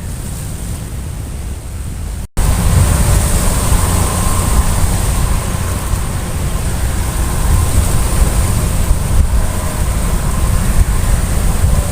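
Wind buffeting the microphone: a steady low rumble with a hiss over it, which cuts out for an instant a little over two seconds in and comes back louder.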